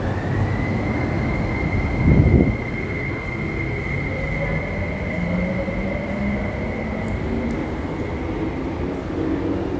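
MTR Tuen Ma Line electric train pulling out of the platform and accelerating away. It makes a steady high whine, joined by a lower tone that rises as it gathers speed, with a brief low thud about two seconds in.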